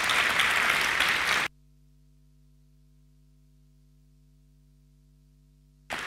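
Audience applauding. About a second and a half in the applause cuts off abruptly to a faint steady hum, then returns suddenly near the end.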